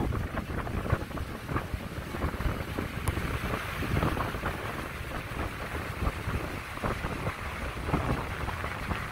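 Ocean surf breaking and washing up the beach in a steady hiss, with wind buffeting the microphone in low rumbles.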